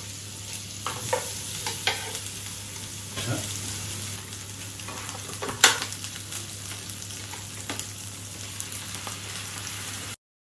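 Food sizzling in a nonstick frying pan on a portable gas burner, with a metal spatula scraping and clicking against the pan. There is one sharp, loud knock a little past halfway, and the sound cuts off abruptly near the end.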